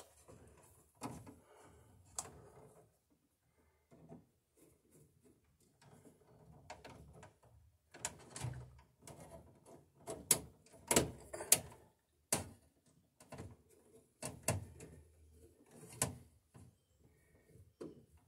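Irregular clicks, snaps and scrapes of hand work at a metal breaker panel: wire strippers stripping the insulation off a 10-gauge wire and the wire being worked into place. The clicks come thickest and loudest about halfway through.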